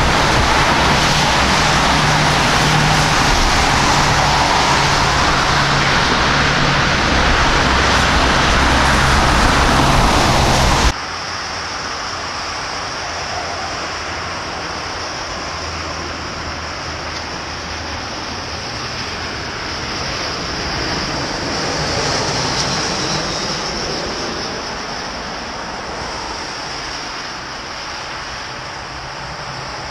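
Airbus A320 jet engines during a landing in rain, a loud steady rush with wind on the microphone. About eleven seconds in, the sound drops suddenly to a quieter rush of traffic on a wet road and the distant airliner's engines, which swell and fade about two-thirds of the way through as the plane passes.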